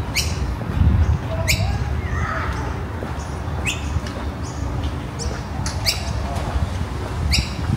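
A bird giving five short, sharp calls that sweep quickly down in pitch, spaced unevenly through the stretch, over a steady low rumble.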